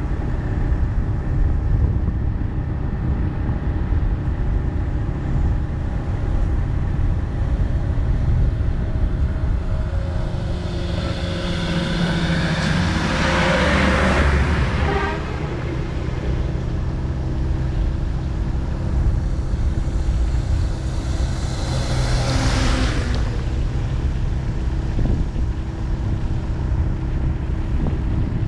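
Steady low rumble of a vehicle on the move, with engine and road noise. Other vehicles pass close twice, a longer swell about halfway through and a shorter one about three-quarters of the way in.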